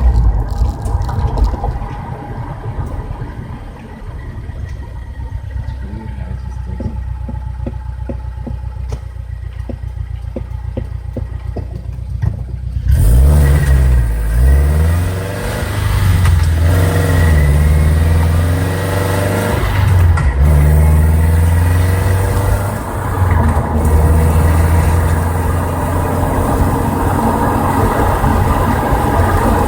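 Scion FR-S's 2.0-litre flat-four engine running while driving: for about the first half it slows down with its pitch slowly falling, the deceleration in which the owner hears a grinding noise that appeared after an Exedy stage 2 clutch was fitted. About halfway through it suddenly gets louder, the revs climbing and dropping several times as the car accelerates.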